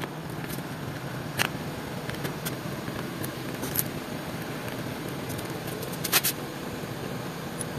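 A few scattered light clicks and taps of small plastic and metal parts as the right handlebar switch housing of a Yamaha NMAX scooter is fitted back on, the loudest a quick double click about six seconds in, over a steady low background hum.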